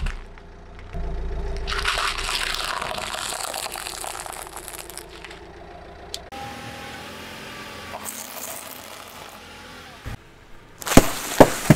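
Car tyre rolling over thin plastic cups full of crunchy corn snacks, the cups cracking and the snacks crunching for several seconds. Near the end come a few sharp, loud pops as the tyre runs over sealed snack bags.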